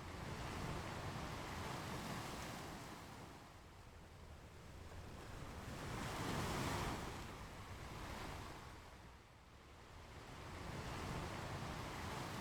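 Ocean waves breaking and washing up on a beach, the surf swelling and fading in slow surges a few seconds apart, loudest about halfway through.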